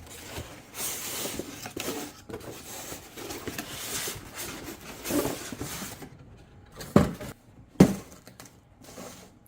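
Cardboard box and packaging being handled and rustled while items are taken out, followed by two sharp knocks about seven and eight seconds in.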